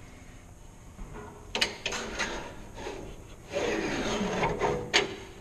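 Bandsaw wheel-case door and latch knob being handled: a couple of clicks, then a scraping rub about three and a half seconds in, ending in a sharp click.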